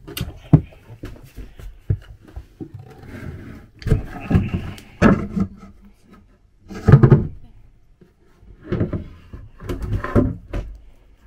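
A wooden floor panel in a boat cabin is handled with a hand suction-cup lifter: scattered clicks and wooden knocks, with rougher scraping and rubbing as the board is worked loose and lifted, loudest about 7 seconds in.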